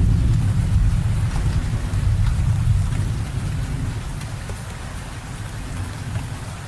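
Rain falling steadily with scattered drops, under a low rumble of thunder that dies away about halfway through.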